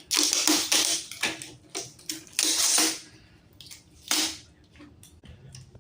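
Handling noises from working on a TV's backlight assembly: a quick run of rustles and clicks, busiest in the first three seconds and sparser after.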